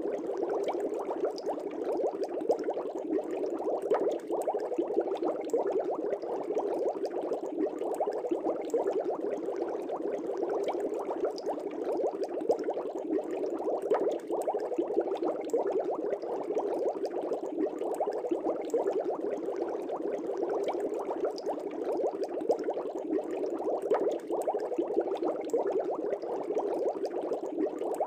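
Aquarium air bubbles rising and bursting at the water surface: a steady, dense bubbling with many small pops.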